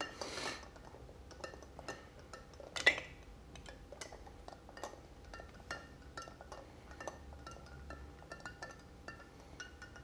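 Long bar spoon stirring a cocktail around a single large ice cube in a rocks glass: a steady run of soft, rapid clinks and ticks of spoon and ice against the glass, with one louder click about three seconds in.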